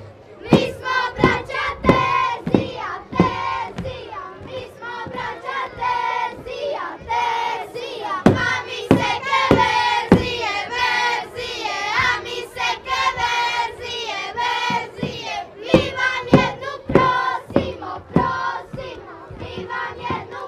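Group of children singing a Croatian folk game song in unison while they dance, with sharp stamps of their dance steps scattered through the singing.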